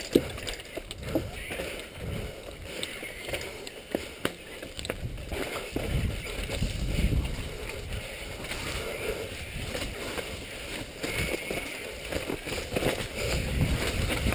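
Downhill mountain bike clattering and rattling over rocks, roots and a wooden boardwalk, with irregular sharp knocks from impacts over a low rumble of tyre and wind noise.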